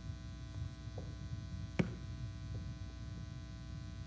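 Steady low electrical buzz and hum in the sound system, with one sharp click a little under two seconds in.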